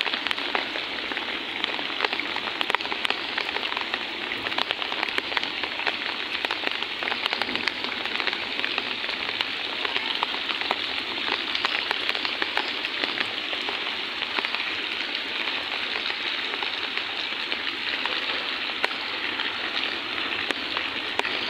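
Heavy rain pouring down onto a flooded dirt courtyard: a steady, dense hiss of drops splashing on standing and running water.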